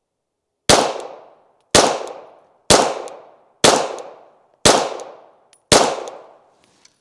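Six 9mm shots from a Glock 17 pistol, spaced about a second apart, each dying away in a long echo.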